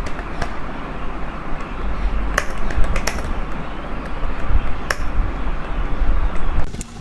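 Rapid typing on a computer keyboard: a dense patter of keystrokes with a few sharper key clicks and a low rumble underneath. It stops abruptly near the end.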